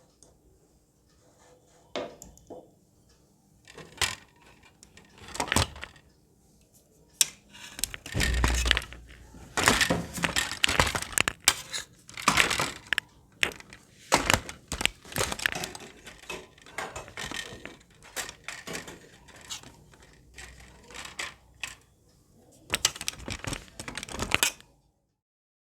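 A metal spoon scraping and knocking against a cooking pan, in irregular clinks and scrapes, as thick halwa is worked and scooped out. The sounds stop abruptly near the end.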